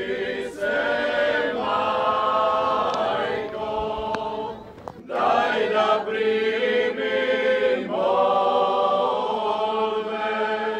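A choir singing slow, held chords in long phrases, with a short break about halfway through.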